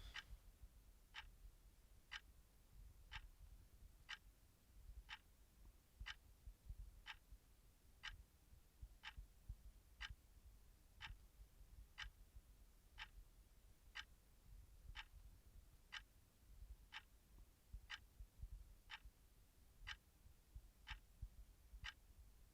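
Faint clock ticking steadily, about once a second.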